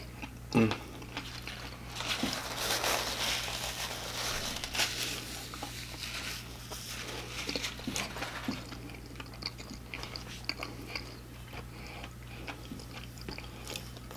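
Close-miked chewing of fried food: crunching and wet mouth sounds, densest a few seconds in, then thinning to scattered small clicks.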